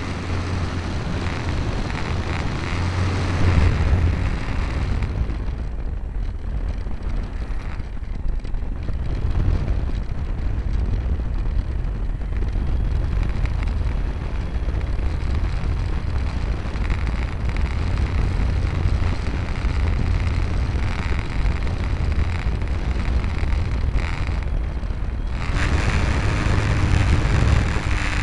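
Wind rush and buffeting on the onboard camera of a Multiplex FunCub radio-controlled plane, mixed with the hum of its electric motor and propeller. The sound eases about five seconds in and rises sharply again a few seconds before the end, with a steady motor whine.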